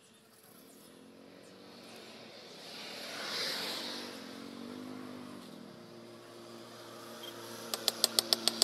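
A motor engine passing by, with a pitched hum that swells to a peak in the middle and fades. Near the end comes a rapid series of sharp knocks, about five a second: the wooden handle of a knife forged from a lawnmower blade being tapped down on a block to seat it on the tang.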